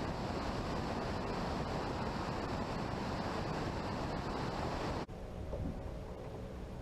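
Rushing wind on the microphone and splashing water from a fishing boat moving on the lake, a loud, even roar. About five seconds in it cuts sharply to a much quieter, steady low hum.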